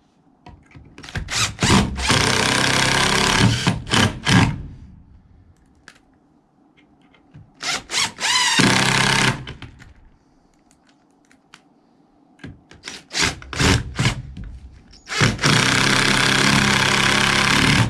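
Power drill driving screws into a wooden 4x4 ramp, in three runs of a few seconds each, each begun with short stuttering bursts of the trigger.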